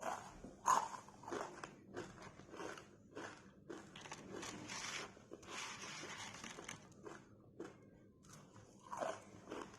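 Close-up crunching and chewing of crisp fried murukku. There are sharp bites in the first second or so and again near the end, with a longer crackly stretch of chewing in the middle.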